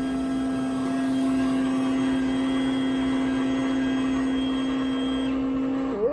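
Coffee machine running with a steady, even motor hum that stops near the end, as a cup of coffee is dispensed.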